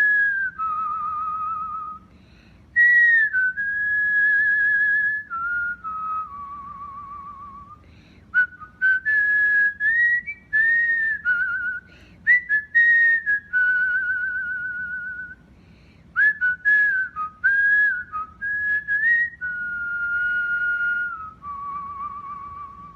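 Cockatiel whistling its song: a string of clear notes that step up and down in pitch, some held for a second or two with a fast warble, others short and sharp, with brief pauses between phrases.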